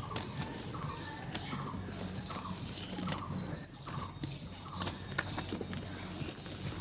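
Reformed gym chalk being crushed, with repeated short crunches about every half second and a few sharp cracks.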